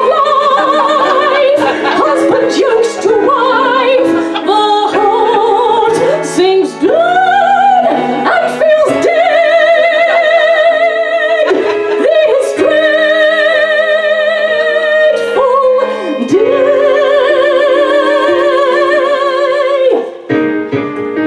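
A woman singing in a high, operatic soprano with wide vibrato, holding several long notes, over live piano accompaniment.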